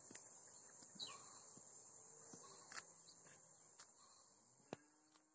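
Steady high-pitched drone of crickets, with a short falling bird chirp about a second in and a few faint sharp clicks; the sound fades away near the end.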